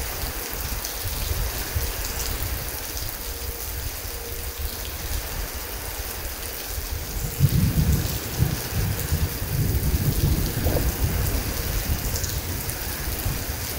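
Heavy rain falling steadily. About halfway through, a low rumble of thunder begins and rolls on to the end.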